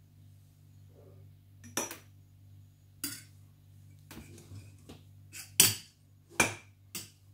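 Metal spoon clinking and knocking against a stainless steel saucepan while scooping thick fruit custard: about six separate clinks at uneven intervals, the loudest a little past the middle.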